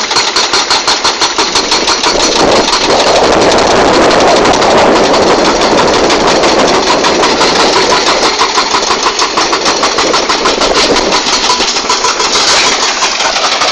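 Heavy diesel engine of a crawler excavator running, a fast steady pulsing that grows louder under load about three seconds in and eases back after about eight seconds.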